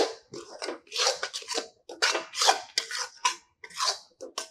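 Metal spatula scraping and stirring thick besan halwa around a metal kadhai, about two scrapes a second, as the flour is roasted in ghee.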